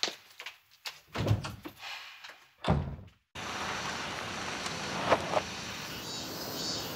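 A couple of dull thumps, then a car rolling up on paving, heard as a steady rush of tyre and street noise with a few light clicks.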